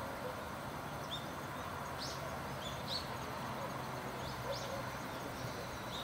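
Small birds giving short, high chirps, five or so scattered through, over a steady outdoor background hiss.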